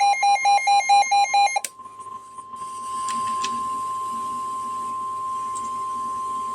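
NOAA Weather Radio's 1050 Hz warning alarm tone: one steady, loud, single-pitched tone that comes ahead of a new warning message. For the first second and a half a rapid electronic beeping, about four beeps a second, sounds over it and then stops.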